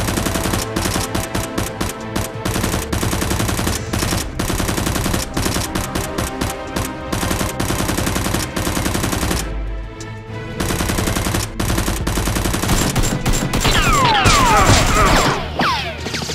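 Rapid, sustained bursts of dubbed-in gunfire sound effects, like automatic weapons, with a short pause about ten seconds in. Near the end come many falling whistling sweeps.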